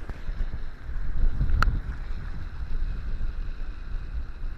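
Wind buffeting the microphone as a steady low rumble, with one sharp click about a second and a half in.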